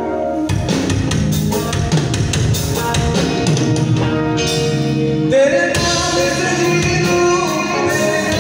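Live band playing through PA speakers: drum kit, guitar, keyboard and a male singer. Held notes give way to the drums and full band coming in about half a second in, with singing over the top in the second half.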